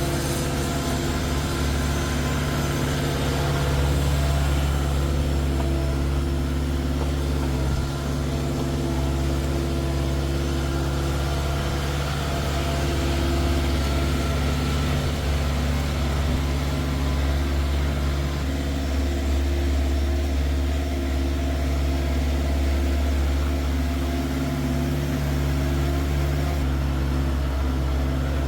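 Bobcat S450 skid-steer loader's engine running at a steady speed.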